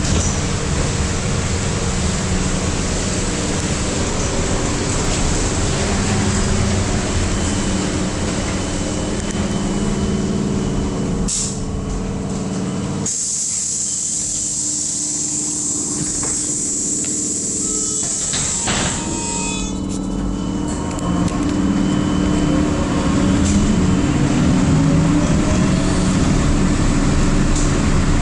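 Trolleybus cabin running noise: the electric traction motor hums steadily under tyre and road noise on a wet street. About halfway through, the low rumble drops away and a loud high hiss runs for about six seconds. Near the end a whine rises in pitch as the trolleybus picks up speed.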